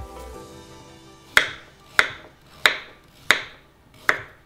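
Kitchen knife chopping a raw carrot into chunks on a wooden cutting board: five crisp chops about two-thirds of a second apart, starting about a second and a half in, over soft background music.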